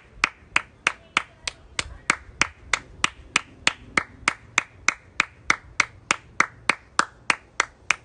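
One person clapping hands steadily in an even rhythm, about three and a half claps a second.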